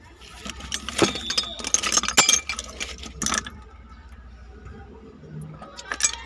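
Metal tools and small engine parts clinking and clattering against each other in a few short bursts, with quieter stretches between them.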